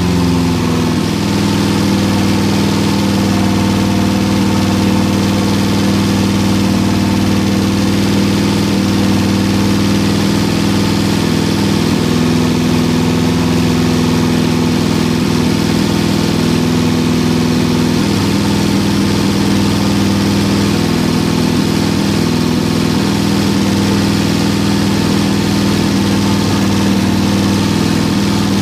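1974 Toyota Corolla's carbureted four-cylinder engine idling steadily, running again after sitting unused for about 25 years.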